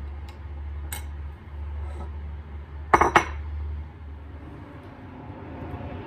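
Metal spoon stirring and clinking against a ceramic bowl: a few light clinks, then two sharp clinks in quick succession about three seconds in.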